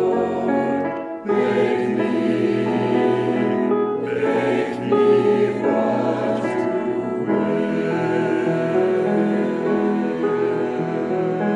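Mixed choir of men's and women's voices singing a slow sacred anthem in sustained chords, with grand piano accompaniment. The phrases are broken by brief pauses about a second in and again near four seconds.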